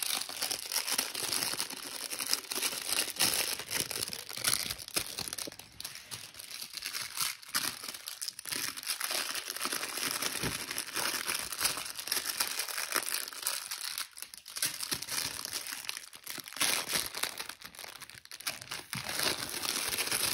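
Continuous crinkling and rustling of a plush dog toy as it is shaken in front of a puppy and tugged and chewed, with only brief lulls.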